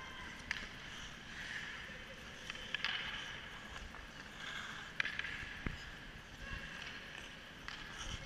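Ice skates scraping and gliding on rink ice, with scattered sharp clacks of hockey sticks hitting the puck and the ice.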